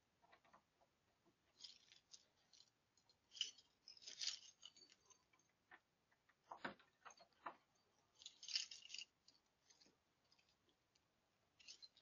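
Faint metallic clicks and scrapes of keys being tried in a front-door lock, in a few short bursts a second or two apart.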